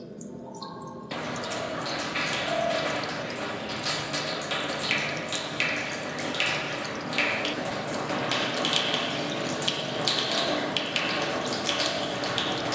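Water from a tap running in a thin stream into a stainless steel sink, a steady splashing. A few drips come first, and the flow starts suddenly about a second in.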